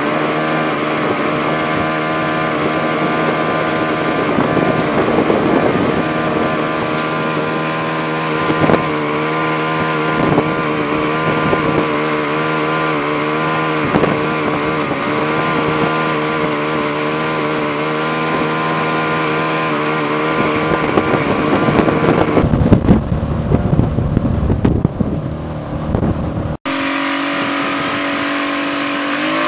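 Motorboat engine running steadily at towing speed, with water rushing past. Near the end there are a few seconds of rough wind rumble on the microphone, then an abrupt cut to the engine running at a different pitch.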